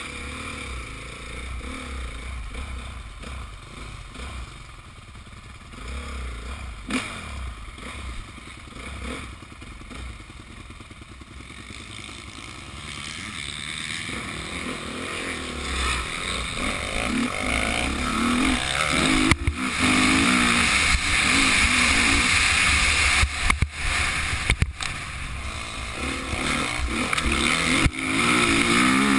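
Motocross bike engine heard from a camera on the rider, running low at first and then louder from about halfway as the bike picks up speed on the dirt track. The revs rise and fall, wind rushes over the microphone, and there are a few sharp knocks in the second half.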